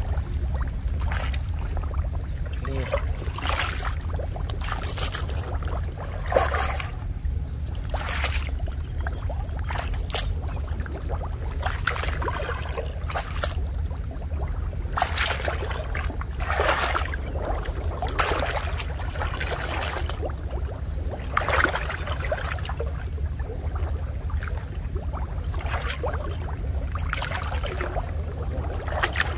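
Water splashing and dripping off a fishing net as it is hauled hand over hand out of shallow muddy water, with irregular splashes every second or two over a steady low rumble.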